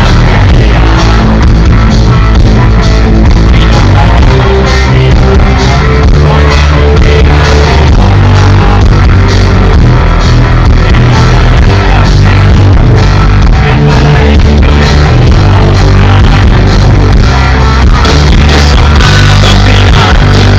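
Rock band playing live, loud and continuous with a steady beat.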